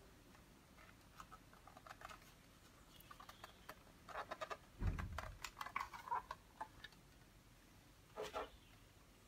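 Faint handling sounds of a plastic franking-machine ink waste tray as the used ink pad is pulled out of it: scattered light clicks, scrapes and rustles, with a soft thump about five seconds in.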